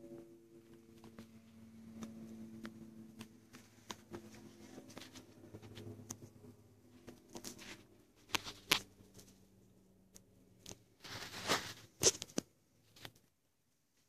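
Quiet indoor room tone with scattered light clicks and rustling from a hand-held camera being moved about, and a louder brief rustle about eleven seconds in.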